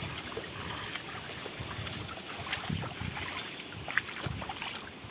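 Footsteps sloshing through a shallow, muddy stream: a few soft splashing steps over a steady hiss of moving water, with a sharp click about four seconds in.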